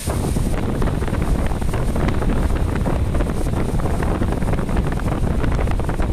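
Strong wind buffeting the microphone in a loud, steady low rumble, with a crackly rustle running through it.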